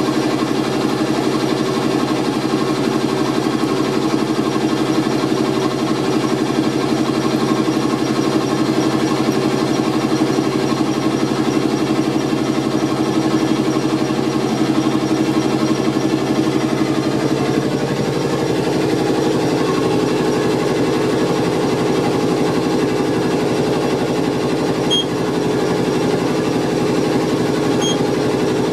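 Auxiliary machinery of a class 451 electric multiple unit running steadily in the cab, a constant hum with a fixed pitch; about two-thirds of the way in its note changes and a fast rhythmic chugging sets in. A few short beeps near the end as keys on the cab's GSM-R radio terminal are pressed.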